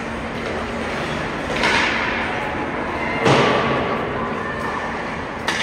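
Ice hockey game in a rink: a steady arena din with crowd chatter, broken by three sharp knocks of the play on the ice and boards, about a second and a half in, the loudest a little over three seconds in, and one right at the end.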